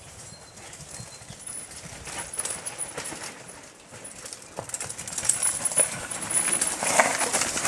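Mountain bike clattering over a rocky trail, with a run of knocks and rattles that grows louder as the bike comes closer.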